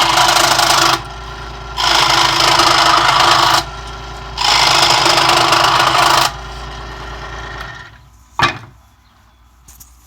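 Central Machinery 16-inch scroll saw running, its blade cutting wood in three loud spells of about two seconds each with the motor running steadily between them. The saw stops a little under eight seconds in, followed by a single sharp knock.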